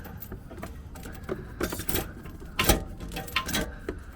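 Irregular metallic clicks, rattles and knocks as a Humvee speedometer cable is worked through the truck, with one sharper knock a little past halfway.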